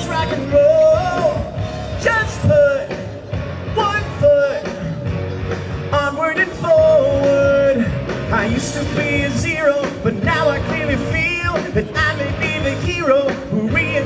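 A man sings a Broadway show tune into a handheld microphone over an upbeat amplified band backing, heard through the stage's loudspeakers, with long held notes between phrases.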